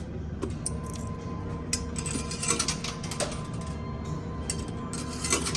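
Coin pusher machine running: a steady mechanical hum from the pusher with scattered clinks and clicks of quarters knocking together, over the machine's electronic tones.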